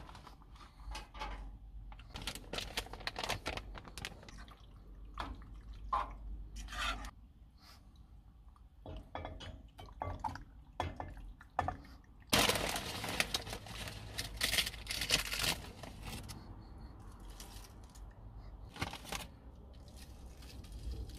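Cooking sounds: a metal spoon scraping and knocking pasta in tomato sauce out of a saucepan into a glass dish, with wet slides and plops, clinks of the spoon and dish, and packets rustling. It is loudest for a few seconds around the middle.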